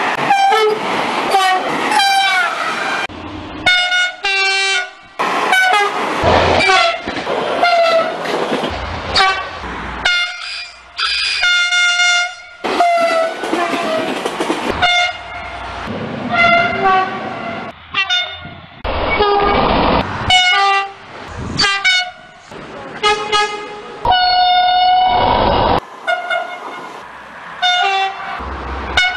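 A run of French trains sounding their horns in turn: short blasts and a few longer held notes, each clip cut off abruptly by the next. Between the blasts comes the rushing noise of the trains passing.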